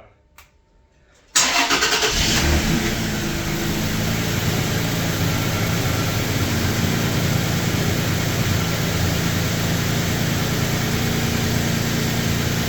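Toyota Tacoma's engine started about a second and a half in: a brief crank, then it catches and settles into a steady idle.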